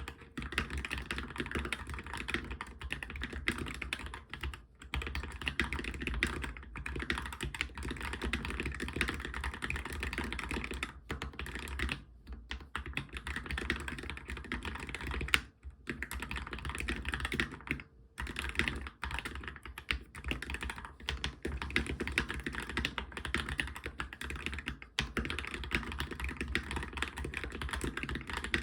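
Fast, continuous typing on a Monstargear MK308 mechanical keyboard with fully lubricated optical switches, with a few brief pauses between runs of keystrokes.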